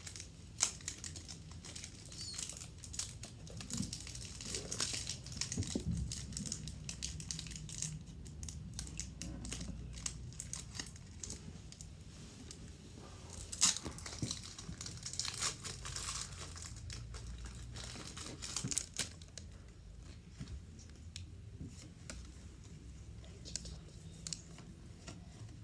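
Foil booster-pack wrapper of Pokémon trading cards crinkling and being torn open by hand, in irregular rustling spells with quieter stretches between.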